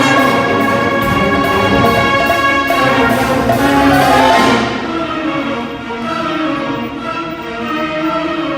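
Marching band playing a brass-led piece: loud held brass chords that drop to a softer passage about four and a half seconds in.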